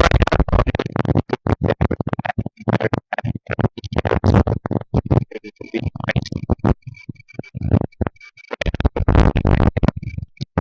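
Wind from an electric fan buffeting a Rode VideoMicro shotgun mic that has no furry windscreen: loud, choppy rumbling gusts that bury the speaker's voice.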